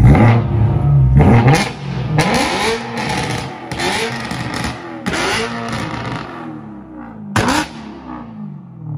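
BMW E92 M3's S65 V8 revved hard in about half a dozen quick blips, each rising and falling in pitch, with sharp exhaust pops and cracks between revs. The first revs are the loudest, and the blips die away near the end.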